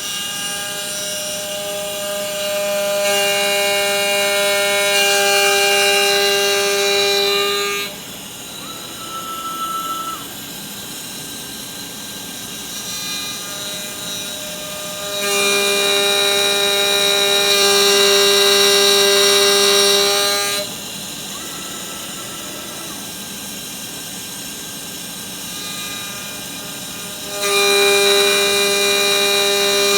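Home-built CNC machine's spindle running steadily while it takes facing passes. The cutting sound swells for several seconds at a time, three times, as the cutter sweeps across the surface, and drops back between passes.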